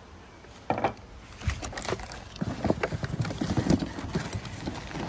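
Corrugated cardboard box flaps being handled and folded back: a run of irregular knocks and scrapes of cardboard, thicker from about a second and a half in.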